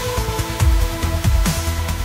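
Electronic background music with a steady beat: deep bass hits that drop in pitch under held synth tones.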